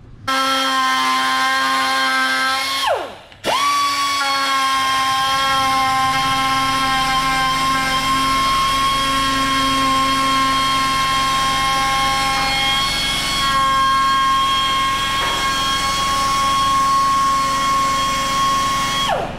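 Handheld air grinder on a coiled air hose, running at high speed with a steady high whine, held against the lower edge of the front bumper. It spins down about three seconds in, starts again half a second later, and spins down again near the end.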